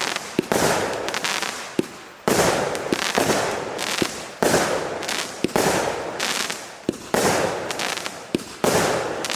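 A 36-shot, 0.8-inch firework cake firing shot after shot, about one every second or so. Each shot is a sharp report followed by a fading hiss, with a few short extra pops in between.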